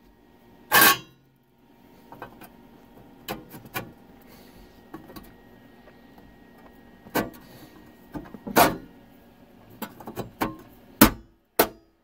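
Thick welded steel bracket knocking and clanking against sheet-metal as it is set in place and pressed down by hand: a string of sharp knocks, a few of them loud, at uneven intervals.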